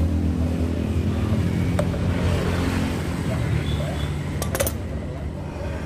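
An engine running steadily with a low hum that slowly weakens. Two sharp metallic clinks come through it, about two seconds in and again near four and a half seconds.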